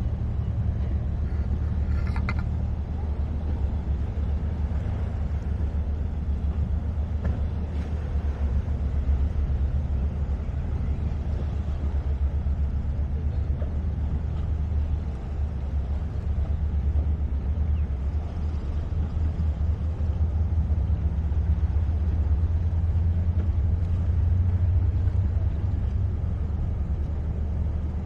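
Steady low engine rumble, a deep drone with a constant hum that holds level throughout, and a brief high sound about two seconds in.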